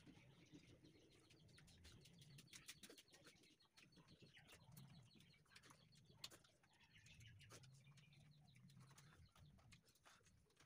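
Faint eating sounds: fingers mixing rice and bean-potato curry on steel plates and chewing, heard as many small clicks and smacks. A faint low hum comes and goes twice.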